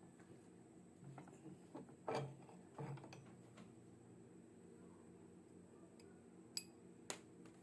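Near silence with a low steady hum, broken by two short knocks about two and three seconds in and two sharp clicks near the end.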